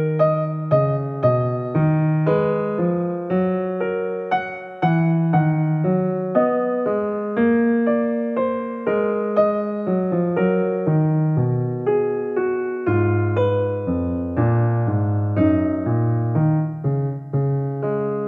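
Background piano music: a gentle melody of evenly paced notes, each struck and fading, with deeper bass notes joining about two-thirds of the way through.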